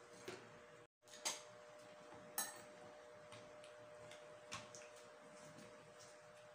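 Faint, sharp clicks and taps of a metal spoon cracking the shell of a balut egg, a few scattered strikes with the two loudest in the first half. A low steady hum runs underneath.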